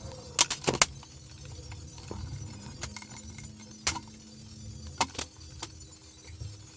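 Sharp metallic clicks and clinks of small hard objects being handled: a quick run of four about half a second in, then a few single clicks spread out.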